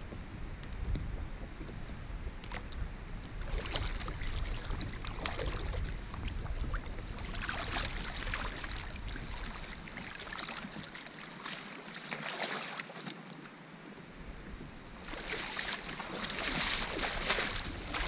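Shallow water sloshing and splashing in irregular surges, with wind rumbling on the microphone during roughly the first half.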